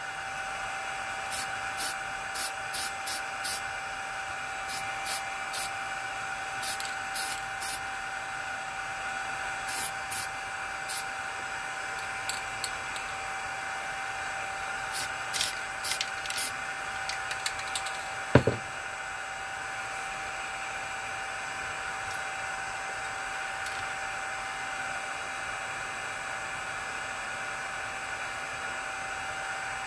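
Short puffs of a Rust-Oleum aerosol spray-paint can, fired in quick clusters through roughly the first sixteen seconds, over the steady whir of a fan with a constant hum in it. A single sharp knock about eighteen seconds in.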